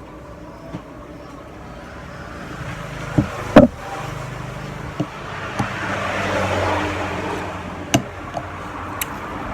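Street ambience: a vehicle passing, swelling to its loudest about two thirds of the way through and then easing, over a steady low hum. A few sharp knocks cut through, the loudest about three and a half seconds in.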